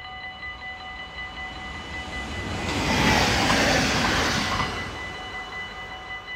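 Passenger train passing a level crossing at speed. Its noise swells about two seconds in and dies away within about three seconds, over the crossing's electronic warning bells, which ring in a steady, rapid pulse throughout.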